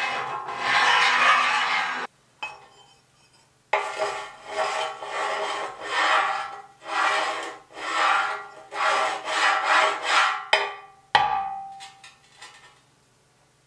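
Steel scraping against steel in a run of repeated strokes, roughly one a second, as loose plates are worked against a steel square-tube beam. Near the end comes a single sharp metal clank with a short ring, then a few light taps.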